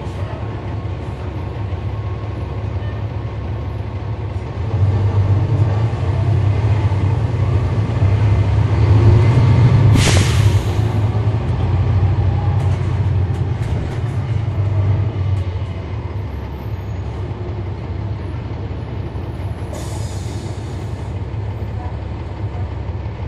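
Cummins ISL9 diesel engine of a NABI 40-SFW transit bus, a steady low drone heard from on board. About five seconds in it gets louder under load, with a short sharp burst of air hiss near its peak. It eases back to a steady drone after about fifteen seconds.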